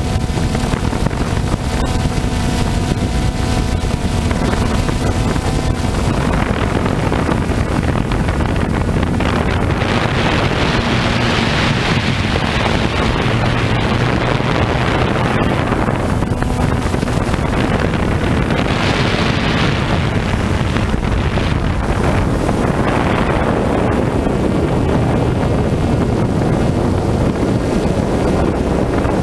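Camera drone's motors and propellers heard from its own onboard microphone: a steady buzzing hum with wind rushing over the microphone, swelling loudly several times.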